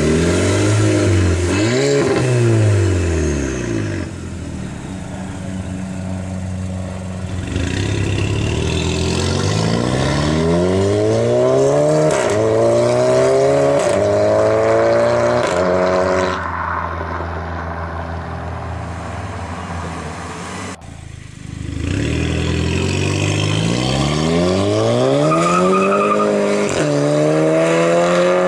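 Stage 2 GIAC-tuned Audi A3 Sportback engine and exhaust: two quick revs with the pitch going up and back down, then hard acceleration through the gears, the pitch climbing and dropping at each upshift. About two-thirds of the way in there is a break, then another full-throttle run through the gears.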